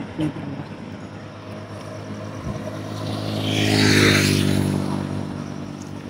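A motor vehicle passes close by, its engine and tyre noise swelling to a peak about four seconds in and then fading away.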